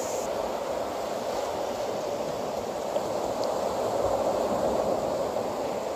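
Steady hiss and wash of surf breaking and running up the beach.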